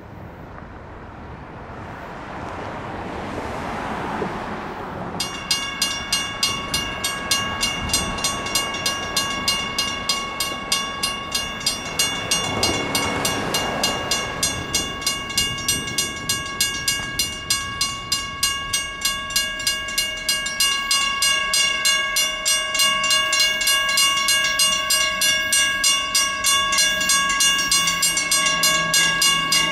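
A railroad crossing signal bell starts ringing suddenly about five seconds in, dinging rapidly and steadily, a little over two strikes a second, as the crossing activates for an approaching train. Before it starts, a vehicle passes, and a second one passes mid-way under the bell. A low steady hum joins near the end.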